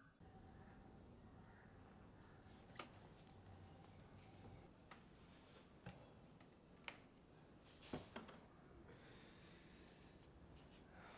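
Faint night ambience: a cricket trilling steadily on one high pitch, with a few soft ticks.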